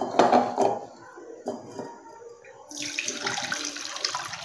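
A few light knocks as a steel mesh strainer is set on a glass bowl, then, from about two-thirds of the way in, a steady splashing pour as cooked grapes and their juice are tipped from a saucepan through the strainer.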